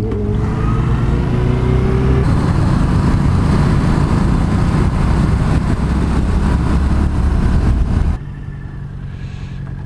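Yamaha FZ-07's parallel-twin engine running under way, mixed with loud wind and road rush. The sound drops to a quieter engine hum about eight seconds in.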